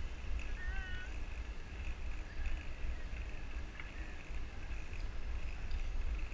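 Wind buffeting the action camera's microphone as a bicycle rolls along at riding speed, a steady low rumble with a faint hiss of road noise. A few short, wavering high chirps sound about a second in.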